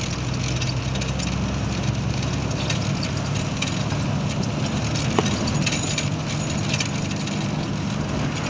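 Engine of a moving road vehicle running steadily under road and wind noise, heard from inside the vehicle through an open window, with occasional rattles and one sharp knock about five seconds in.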